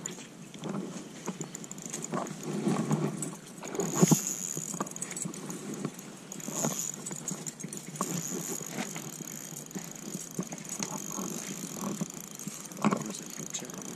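Spinning reel being cranked by hand, its handle and rotor whirring and clicking, with knocks from handling the rod and reel, the loudest about four seconds in and again near the end.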